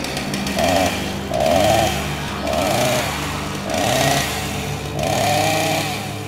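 A chainsaw revving in five short bursts, roughly a second apart, the last one the longest, over a low steady drone.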